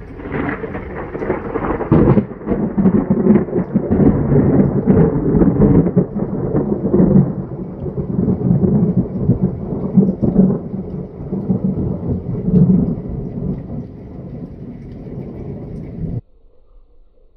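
Loud, long rolling thunder from a close lightning strike, breaking in suddenly and rumbling and crackling for about sixteen seconds with rain falling, then cut off abruptly.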